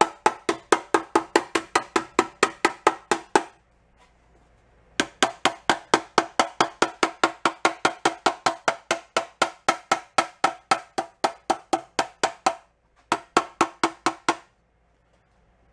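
Small hammer tapping rapidly on a thin sheet-metal box cover held in a vise, about five light, ringing strikes a second, reshaping the panel so it fits its enclosure. The tapping comes in three runs, with short pauses about three and a half seconds in and again near the end.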